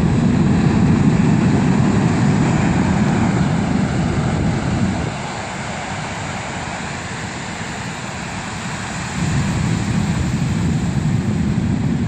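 Heavy surf breaking and washing up a cobblestone beach: a loud, rumbling wash that eases about five seconds in and swells again about nine seconds in with the next breaker.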